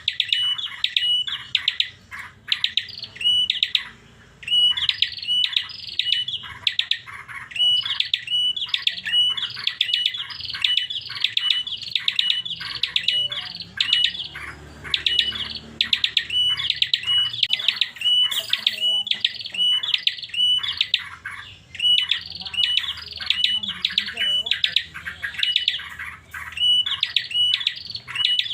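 Pet prinia (prenjak) singing an unusual, strange-sounding song: a long run of sharp, high repeated notes, about three a second, broken by a couple of short pauses.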